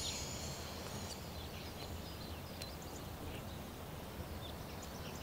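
Quiet outdoor ambience: scattered short bird chirps over a steady low rumble.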